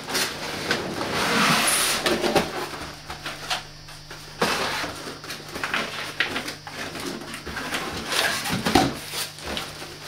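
Cardboard packing and plastic wrapping rustling, scraping and knocking as a wrapped computer is pulled out of its carton, in uneven bursts of handling noise.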